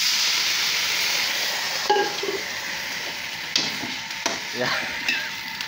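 Water hitting hot oil in a wok of leaves and flowers: a loud sizzling hiss that starts at once and slowly dies down. A few knocks of the stirring utensil against the wok come through in the second half.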